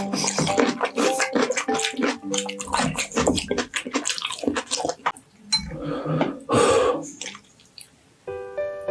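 Close-miked wet eating sounds of beef bone marrow: rapid sticky clicks and smacks while chewing, then two longer wet slurps a little past halfway. Light background music plays over the first couple of seconds and comes back just before the end.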